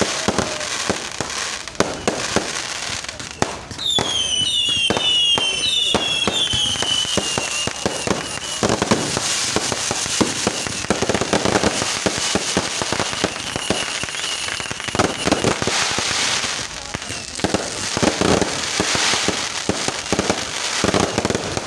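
Fireworks going off in quick succession: dense crackling bangs throughout, with several whistles falling in pitch about four seconds in.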